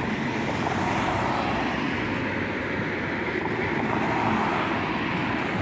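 Road traffic: cars driving past close by on the street, a steady rush of tyre and engine noise that swells a little about four seconds in as a car passes.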